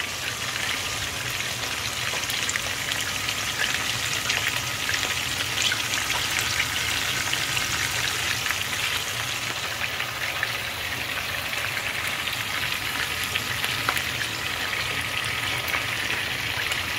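Whole sardines frying in hot oil in a pan: a steady sizzle with fine crackles and pops throughout. The oil is still sizzling hard, which by the cook's own rule means the fish are not yet cooked through.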